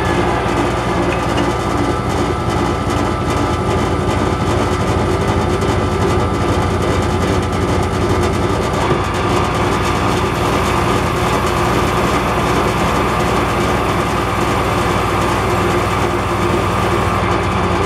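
Metal lathe running steadily while sandpaper is held against the spinning workpiece, a constant motor hum under a rough rubbing hiss.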